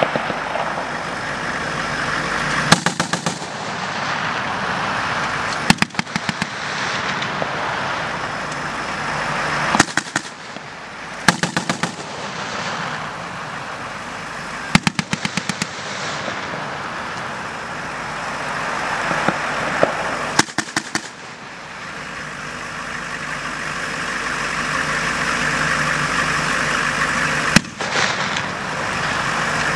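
Machine guns firing several short bursts of rapid automatic fire, spaced a few seconds apart, over the steady drone of vehicle engines.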